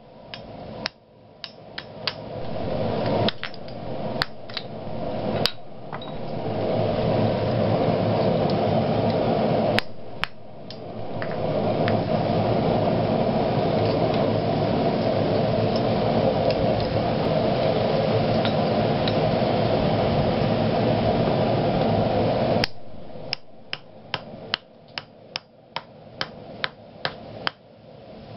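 A hammer strikes a small handheld D2 steel punch, driving a hole through a red-hot square iron bar on the anvil, in quick runs of sharp blows. For most of the middle, a steady loud rushing noise takes over; the punching blows start again near the end, about two a second.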